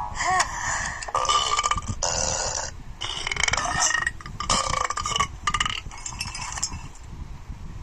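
A run of burps, about five of them, each lasting well under a second, with short gaps between.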